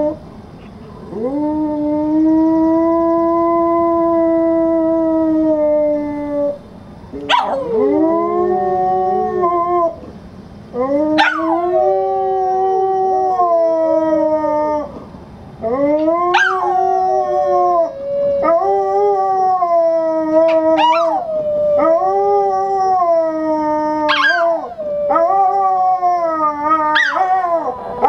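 Two dogs howling: long drawn-out howls that rise, hold and sag in pitch, with short breaths between them. From about seven seconds in, a second howl often overlaps the first, and the calls become shorter and more frequent toward the end.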